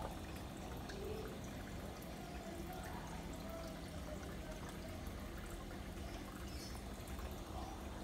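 Steady trickle and pour of water in an aquarium over a low steady hum, typical of a tank's filter running.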